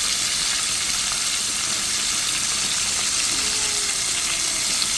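Flour-dusted snapper pieces frying in a pan, a steady, even sizzle.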